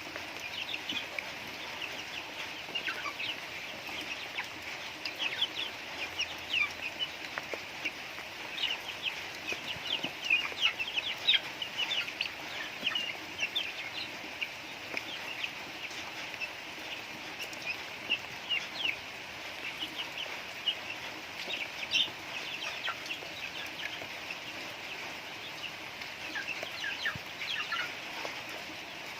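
A flock of chickens calling continuously: many short, quick clucks and cheeps overlapping throughout.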